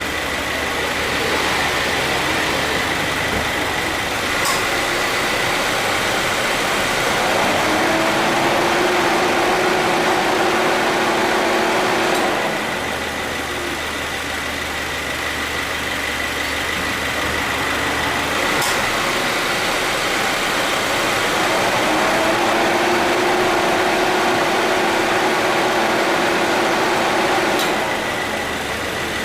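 2014 Subaru Forester idling with its A/C compressor cycling: the compressor clutch clicks in twice, and each time the compressor runs about eight seconds with a steady hum, then clicks off. It starts without abnormal noise, the light start-up noise from wear having been treated.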